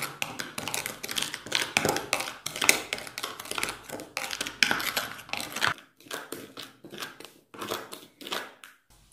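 Metal spoon stirring dry sand and sawdust in a plastic bowl: quick, gritty scraping and rasping strokes that grow sparser after about six seconds.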